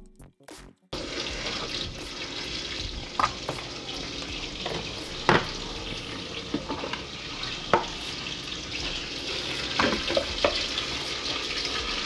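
Butter melting and sizzling in a stainless-steel sauté pan: a steady frying hiss with a few sharp pops and spits. Electronic music plays for about the first second and then cuts off.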